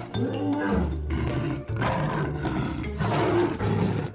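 Dinosaur roars, several in a row, over background music.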